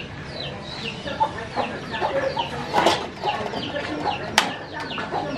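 Chickens clucking, with a steady stream of short, high, falling peeps several times a second. A sharp click sounds once about four seconds in.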